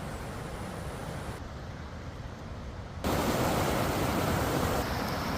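A steady rushing noise that suddenly steps up louder about three seconds in.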